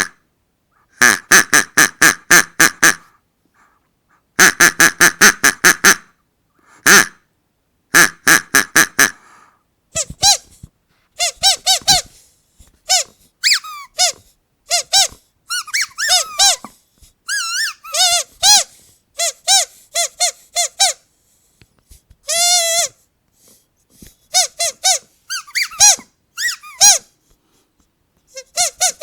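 Squeaky dog toys squeezed again and again. First come quick runs of short squeaks, several a second, in bursts lasting a second or two; from about ten seconds in, single squeaks that swoop up and down in pitch.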